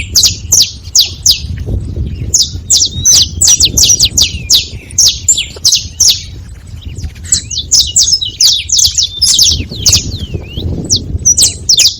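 Saffron finches calling: a rapid run of sharp, high chips, several a second, thinning briefly around the middle, with a few rising-and-falling notes near the end.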